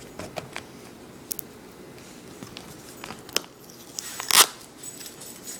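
Tape being peeled off a clear plastic blister pack: scattered crackles and clicks of the plastic, with a short, louder rip about four seconds in.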